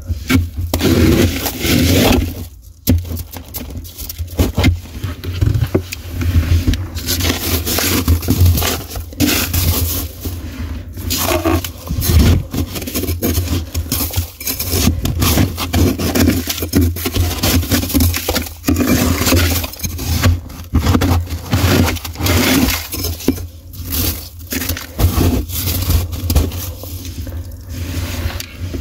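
Thick, powdery frost inside a deep freezer being scraped and broken loose with a small hand scraper: continuous irregular crunching and scraping strokes with short pauses, over a steady low hum.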